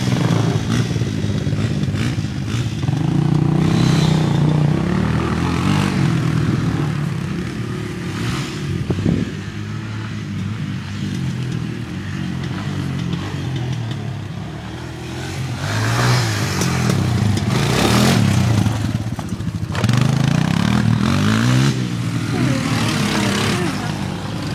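Small ATV engine being ridden, revving up and easing off over and over. The revs climb highest a few seconds in and again in the second half.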